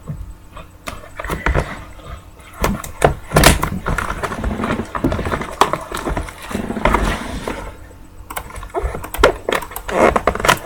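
Irregular crinkling, rustling and small clicks of plastic shrink wrap and cardboard being handled as a sealed box of trading cards is opened.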